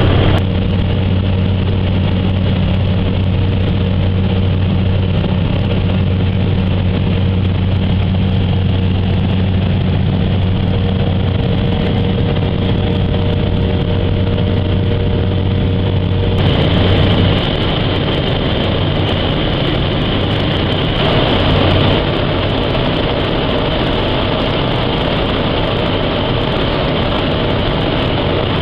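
Single-engine propeller aircraft's engine and propeller droning steadily with a strong low hum, heard from inside the cockpit. The sound changes abruptly about halfway through and again a few seconds later.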